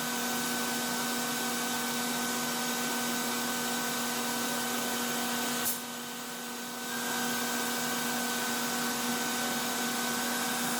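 Stepcraft M1000 CNC router running steadily: a motor whine over a hiss. A little over halfway a sharp click, then the sound drops lower for about a second before coming back up.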